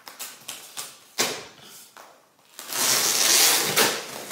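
Cardboard packaging being handled and pulled open by hand: a few short knocks and scrapes, then a longer harsh rasp of cardboard starting about two and a half seconds in and lasting over a second.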